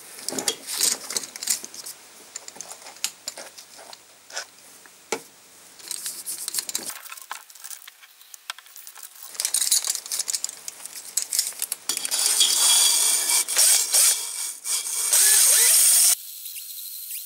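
Metal clinks and rattles as a spring-loaded cylinder hone is handled. From about ten seconds in, a cordless drill spins the hone inside a rusted cylinder liner with a loud, scraping hiss, clearing the rust and laying down cross-hatch scratches. The hiss cuts off abruptly near the end.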